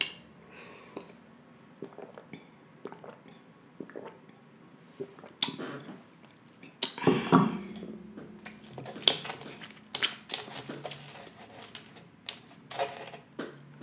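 Small clicks and taps of tableware being handled: a drinking glass, cutlery and a foil-lined tray. There is a sharp knock about five seconds in and a busier run of clicks in the last few seconds, as a cucumber spear is picked up from the tray.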